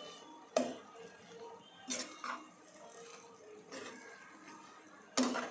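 Spatula knocking and scraping against the side of a metal cooking pot while stirring chopped leafy greens, with several sharp clinks spaced a second or so apart.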